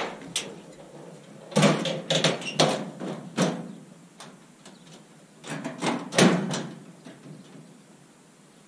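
A run of clunks and rattles: one sharp knock at the start, then two clusters of clattering knocks a few seconds apart, dying away to quiet hiss.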